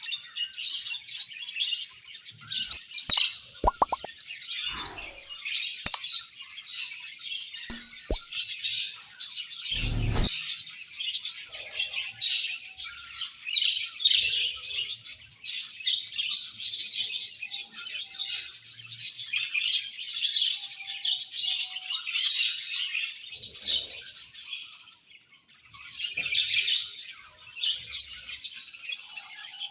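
A colony of budgerigars chirping and warbling together in dense, continuous chatter. There are a few sharp clicks about three to four seconds in and a single dull thump about ten seconds in.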